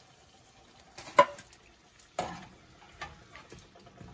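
Metal slotted spoon clinking and scraping against a frying pan and plate as a fried paratha is lifted out of the oil. A few sharp clinks, the loudest about a second in, over a faint sizzle of frying oil.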